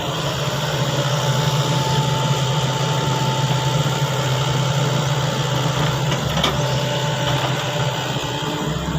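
Sany excavator's engine running steadily.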